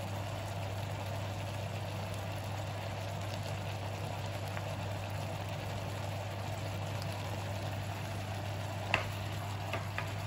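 Violet blewit mushrooms frying in their own juice in a pan over high heat: a steady bubbling sizzle over a low hum, as the liquid boils off. A couple of clicks near the end as a spatula meets the pan.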